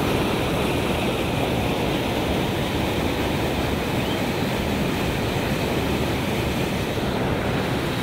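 Floodwater rushing steadily past concrete sluice pillars, an even rushing noise with no breaks.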